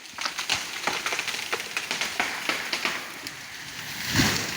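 Dense crackling and rustling of a tree's leaves and twigs, with one louder, heavier thud about four seconds in.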